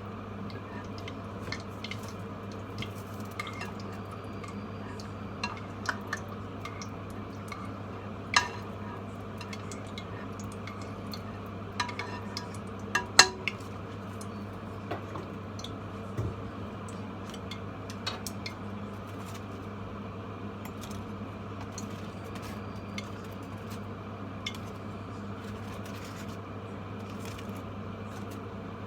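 Dishes and utensils clinking and clattering now and then, with a few sharper knocks about 8 and 13 seconds in, over a steady low hum.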